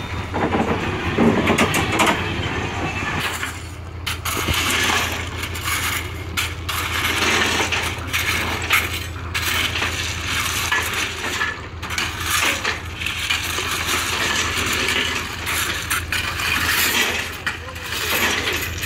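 Steel rakes dragging and spreading crushed-stone railway ballast along the track, a continuous irregular clinking and scraping of loose stones.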